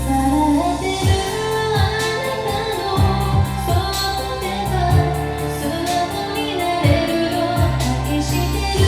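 A woman singing a slow Japanese pop ballad over a backing track with a steady beat.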